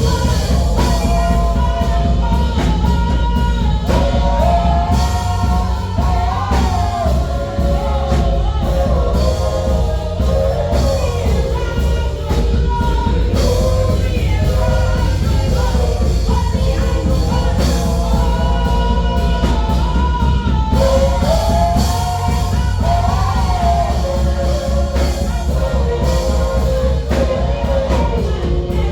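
A choir singing a melodic song with band accompaniment: a steady heavy bass and drums under the voices.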